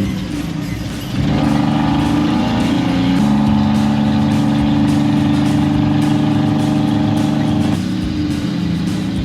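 Background music with a steady beat, its sustained chords changing a few times.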